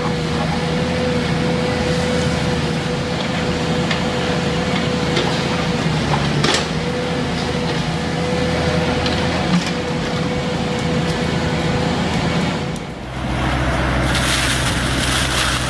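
A heavy forestry machine's engine running steadily with a held whine, with a few sharp knocks and cracks of wood. About 13 seconds in the sound changes abruptly to a deeper engine with a loud hiss.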